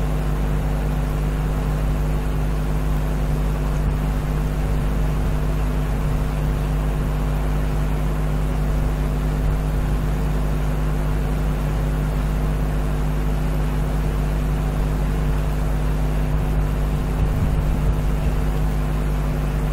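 Steady low machine hum with several held tones.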